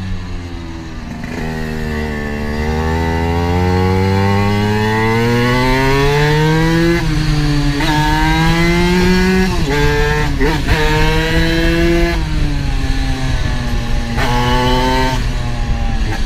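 Classic Vespa scooter's two-stroke engine under hard acceleration: the revs climb, drop at a gear change about seven seconds in, climb again, drop again near ten seconds, then hold high and fairly steady.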